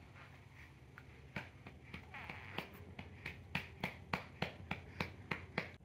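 A hand patting a baby's back in a steady rhythm of soft pats, about three a second, to bring up a burp after a bottle feed.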